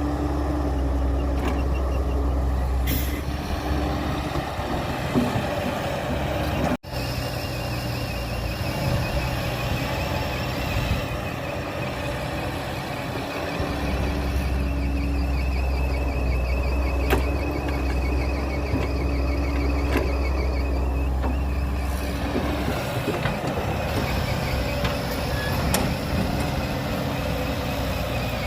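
Heavy diesel earthmoving machinery running steadily, a low engine rumble with a warbling high whine over it, broken by a brief cut about seven seconds in.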